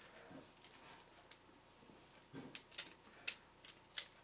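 Small sharp clicks and taps of 3D-printed plastic robot body parts being handled and pressed together, about seven irregular ticks with a couple of soft fumbling sounds between them.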